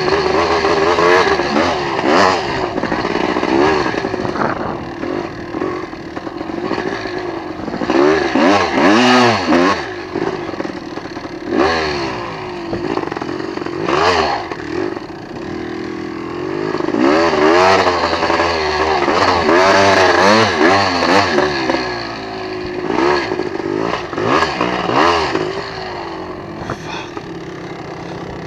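Off-road vehicle engine revving up and down over and over while riding, its pitch climbing and dropping every second or two.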